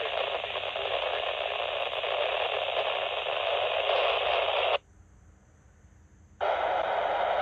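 Baofeng handheld radio's speaker hissing with static as it receives a weak simplex GMRS transmission, the signal there but too weak to copy. The hiss cuts off abruptly about two-thirds of the way through and comes back a second and a half later.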